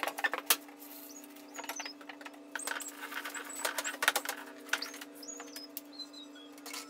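Copper tubing being handled and pushed into place overhead: a few sharp clicks and knocks at the start, then scattered light taps and short, high squeaks that slide in pitch, over a steady low hum.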